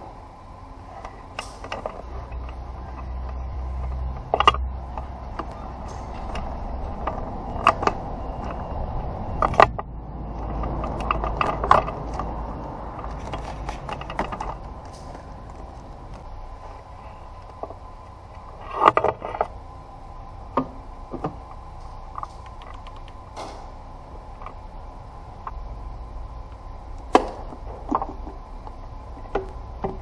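Scattered clicks, knocks and rattles of hands working on plastic engine-bay parts, such as the intake hose and air filter housing being unclipped and moved, over a steady low hum.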